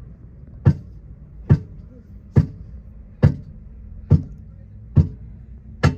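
A hammer striking a car tyre and rim in seven sharp, even blows a little under a second apart, as the tyre is worked by hand on its rim.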